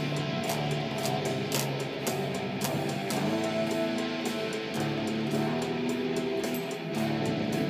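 Five-string fretless bass playing sustained melodic notes, one sliding gently in pitch about three seconds in, in a metal piece with a sharp tick about twice a second.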